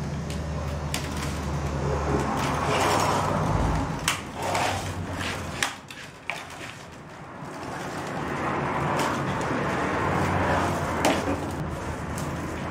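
Long willow rods rustling and scraping as they are gathered and bent upward into a basket frame, with several sharp clicks of rods knocking together. A low steady hum runs underneath.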